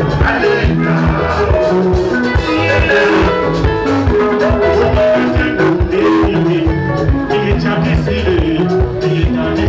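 Zim rumba band playing live: electric lead and rhythm guitars weaving over bass and a drum kit with a quick, steady beat, and a man singing lead into a microphone.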